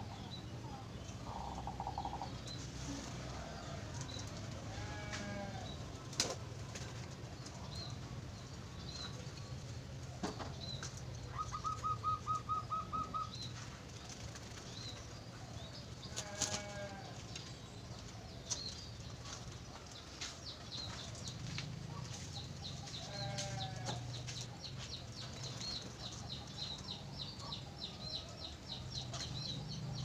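Thin high chirps of a munia (emprit), repeated about once a second and coming faster near the end, over a steady low hum. A few lower wavering calls and one short fast run of pulses sound in between.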